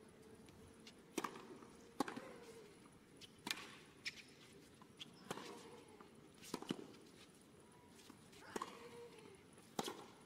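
Tennis ball being hit back and forth with racquets in a rally on a hard court: a sharp pop every one to two seconds. A player's short grunt follows some of the hits.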